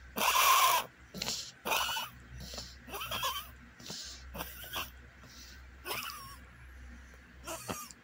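Small dog wheezing: a series of raspy, whistling breaths about every half second to a second, the loudest at the start and fainter toward the end.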